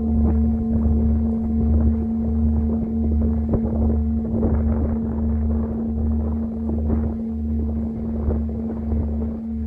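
Singing bowl humming a steady ringing tone with a slow low wobble, about one and a half pulses a second, under a gusty rush of wind on the microphone.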